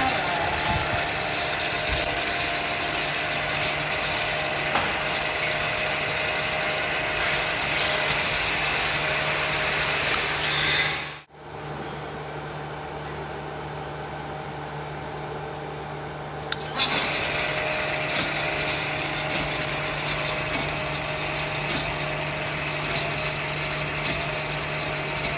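Motor-driven camshaft-copying machine running: a steady hum with irregular clicks and rattles. About eleven seconds in the sound drops out for a moment, comes back duller for about five seconds, then the clicking returns.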